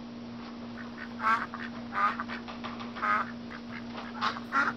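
Duck quacking, about five short quacks spread over a few seconds, over a steady low hum.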